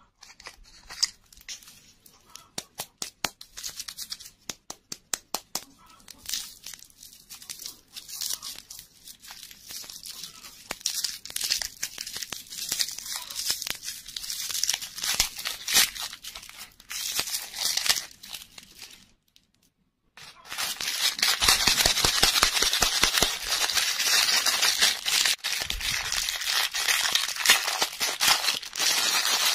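Hands unwrapping a foil-wrapped candy: irregular crinkles and quick clicks of thin foil. After a short pause about two-thirds of the way in, a plastic wrapper bag is crinkled and torn open, louder and continuous.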